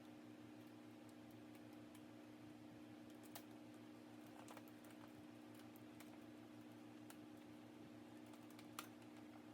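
Near silence: a steady low hum of room tone with faint, scattered clicks and light taps. Two clicks stand out slightly, about a third of the way in and near the end.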